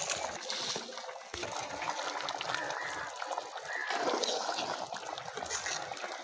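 A thick lentil sambar bubbling at a simmer in an iron kadai, with soft popping and gurgling. Later a flat metal spatula stirs through it.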